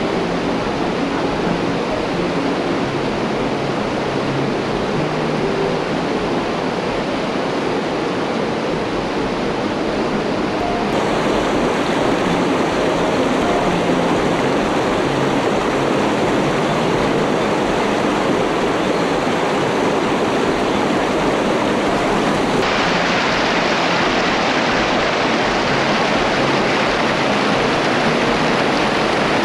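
River water rushing steadily, a loud even noise; its tone shifts abruptly about eleven seconds in and again a little past twenty-two seconds.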